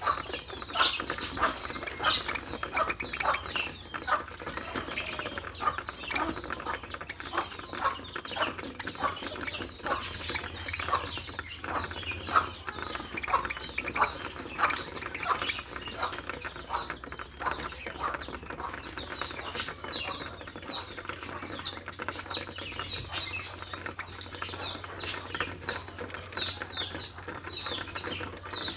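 Budgerigar chattering and warbling: a continuous stream of quick chirps, squeaks and clicks, over a faint low steady hum.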